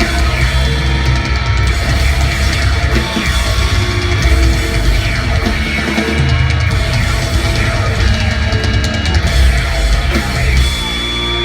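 Rock band playing live and loud: distorted electric guitars, bass and drums.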